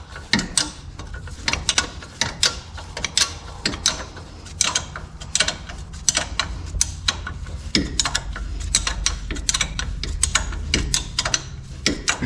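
Hand ratchet wrench clicking in quick irregular runs as a wheel hub bolt is turned by hand, over a steady low hum.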